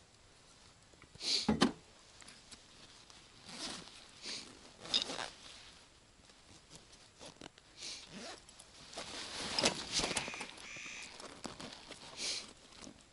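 Irregular crunches, rustles and scrapes of someone moving about and working on the forest floor, with one loud crunch about a second and a half in and a short squeak near the end.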